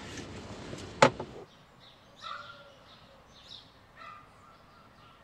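Steady road noise inside a moving Jeep, with a sharp click about a second in. Then quieter outdoor air, where a bird calls three times.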